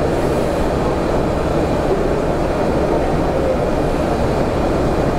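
HP Jet Fusion 540 3D printer running, a steady mechanical rumble.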